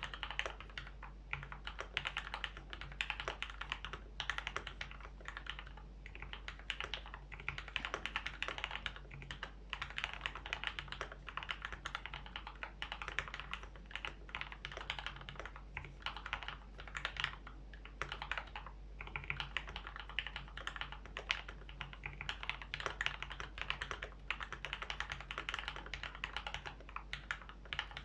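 Typing on a KBD75v2 mechanical keyboard with lubed Gateron Black Ink linear switches on an aluminium plate. Keystrokes come in a fast, continuous stream with short pauses between bursts.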